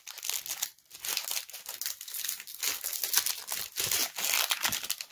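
Foil wrapper of a Magic: The Gathering booster pack crinkling and tearing as it is pulled open by hand, a rapid run of crackles with a short pause about a second in.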